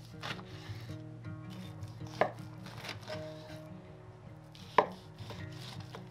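A chef's knife cuts between the bones of raw beef ribs, and the blade knocks sharply on a wooden cutting board twice, about two and about five seconds in.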